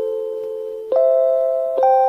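JR Hokkaido station guidance chime for blind passengers: electronic bell-like notes, each struck and then fading. A new note comes about every second, forming a repeating chime melody.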